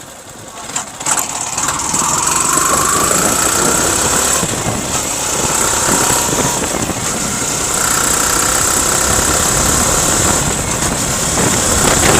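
Yamaha R15 V3's single-cylinder engine running under way, its revs rising about a second in and then holding steady, with a rattling knock. The mechanic puts the knock down to adulterated petrol that is not burning properly in the cylinder.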